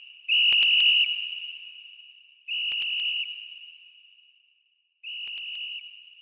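Three long blasts on a high-pitched whistle, each about three-quarters of a second and each quieter than the last, every blast trailing off in a reverberant tail like a fading echo.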